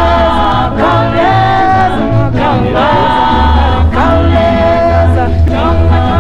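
Background music: several voices singing together in a choir-like style over a low bass line.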